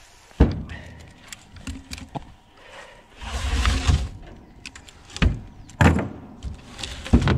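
Heavy knocks and thuds of logs being dropped and handled, several in a row, with a scraping, rustling stretch about three seconds in.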